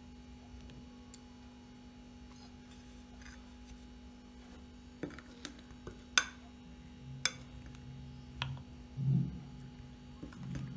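Metal spoon clinking and scraping against a ceramic bowl as fish steaks are turned in thick mustard paste: a handful of sharp clinks starting about five seconds in, the loudest about a second later. A steady electrical hum runs underneath.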